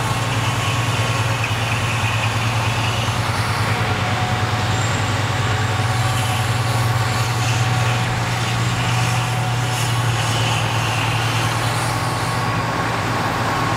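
Fendt 942 Vario tractor's six-cylinder diesel running steadily under load, pulling a Krone BIG Pack 1290 large square baler that is picking up and pressing hay: a constant low engine hum with the baler's mechanical clatter over it.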